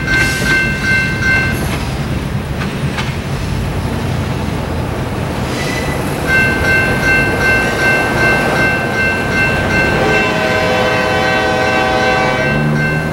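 Air horn of an approaching EMD GP38-3 diesel locomotive sounding for the grade crossing. It gives a long blast that stops about a second and a half in, a short note about five and a half seconds in, and then a long blast from about six seconds on that holds to the end. Under it runs the low rumble of the train, with steadier low engine tones rising near the end.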